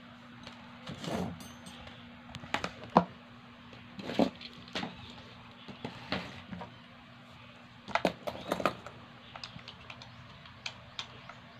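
Scattered plastic clicks and knocks from a hand mixer's two-pin plug, cord and a plastic extension socket being handled, the sharpest click about three seconds in, over a faint steady hum. The mixer's motor does not run: the plug needs an adapter to fit the socket.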